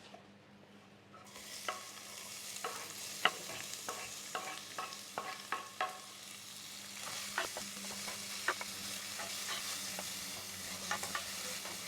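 Red onions frying in hot coconut oil in a pan: a sizzle that starts suddenly about a second in, as the onions go into the oil, with a utensil clicking and scraping against the pan as they are stirred.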